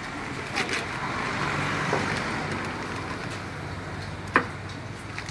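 A road vehicle passing, its noise swelling and then fading over a few seconds. A single sharp knock comes about four seconds in.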